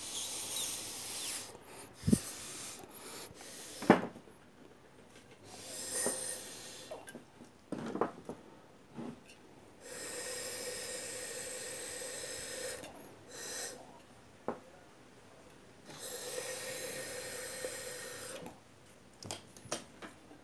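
Two long rushes of air, each about three seconds, with a steady hum running under the hiss. Scattered clicks and knocks come from handling small metal and plastic parts.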